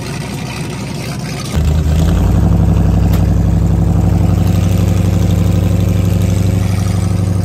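Supercharged rat rod engine running while driving, heard from inside the open cab. About a second and a half in the throttle opens and the engine suddenly gets louder, then holds a steady note.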